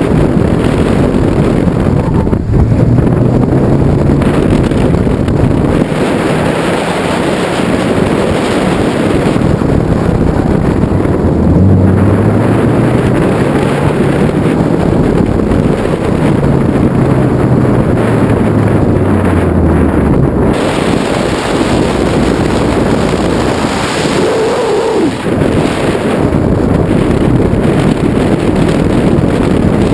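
Heavy wind buffeting on the microphone over a Mazda Miata's four-cylinder engine, revving up and falling off repeatedly as the car is driven hard through an autocross course. The engine note drops away about two-thirds of the way through, leaving mostly the wind noise.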